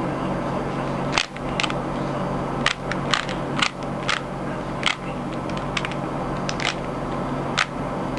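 Plastic Rubik's cube being turned by hand, its faces clicking about ten times at an irregular pace, over a steady background hum.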